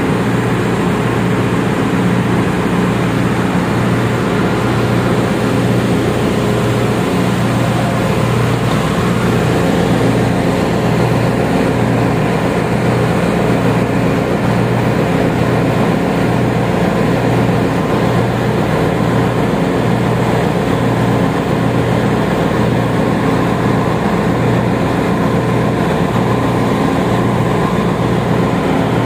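Steady machinery din of a ship's engine room: running engines and pumps giving a loud, unchanging low drone with several steady tones over a constant rushing noise.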